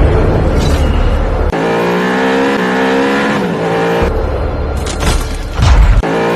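A car engine revving, its pitch climbing and dropping several times, with a loud low rumble near the end.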